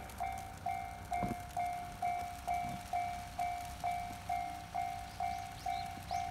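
Japanese railway level-crossing warning bell ringing, an even electronic ding about twice a second. It signals that the barrier is down and a train is approaching.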